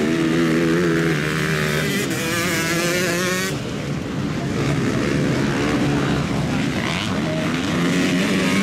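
Motocross dirt bikes racing, their engines revving hard, with the pitch rising and falling as the riders work the throttle through the track and over a jump. More than one engine is heard at once.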